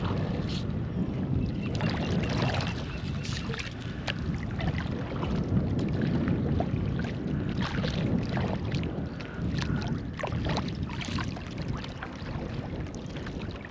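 Kayak paddle dipping into the water in repeated splashy strokes, over a low rumble of wind on the microphone.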